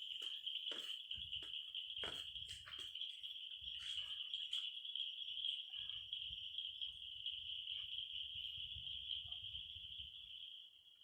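An insect, a cricket or similar, trilling steadily at one high pitch, dropping away near the end. A few sharp clicks or taps sound over it in the first few seconds, and a low rumble comes and goes.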